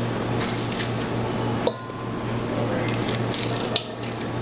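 Lemon halves squeezed by hand, the juice splashing and dripping into the Ninja Foodi's metal inner pot over a steady watery hiss, with a sharp click about a second and a half in and another near the end.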